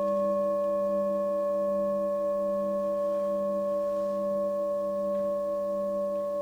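Tibetan singing bowl ringing on after a strike, several steady overtones fading slowly.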